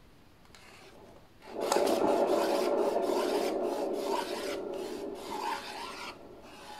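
Rasping, grinding rub of a spinning Lazy Susan turntable's bearing. It starts about a second and a half in and slowly fades over several seconds as the turntable spins down.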